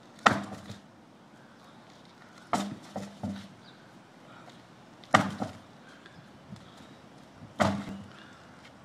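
Large tractor tire being flipped over and landing flat on concrete four times, about every two and a half seconds. Each landing is a loud thud followed by one or two smaller knocks as the tire bounces and settles.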